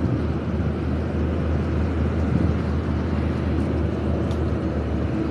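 Tugboat's diesel engine running steadily, a constant low drone with a steady hum, over the rushing wash of water along the hull.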